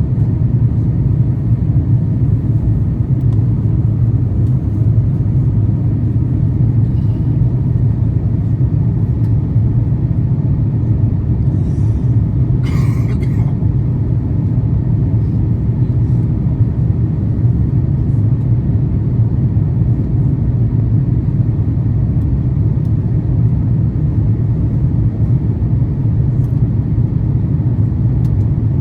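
Steady low rumble of cabin noise inside an Airbus A350-900 airliner, from its Rolls-Royce Trent XWB engines and airflow, with a brief rattle about halfway through.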